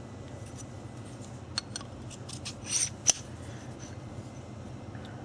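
Small metal parts being handled: a few faint clicks, a short scrape about two and a half seconds in, and a sharp tick about three seconds in, over a steady low hum.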